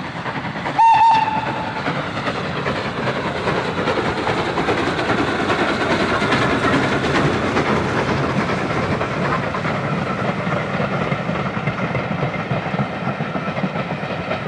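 Two steam locomotives, SECR O1 No.65 and LSWR T3 No.563, double-heading a passenger train past. A short steam whistle blast comes about a second in, then the working exhaust and the clatter of the coaches' wheels on the rails as the train goes by.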